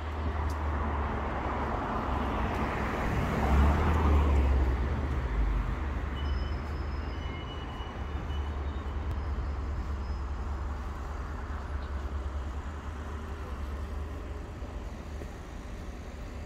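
Road traffic on a town street: a vehicle passes close by about three to four seconds in, over a steady low rumble.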